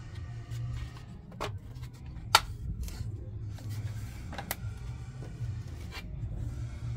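Sharp plastic clicks and knocks as the washing machine's plastic control fascia with its circuit board is handled, four in all, the loudest about two seconds in, over a low steady rumble.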